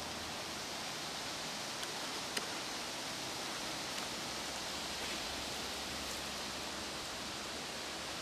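Steady outdoor background hiss with no distinct event, broken by a few faint ticks about two and four seconds in.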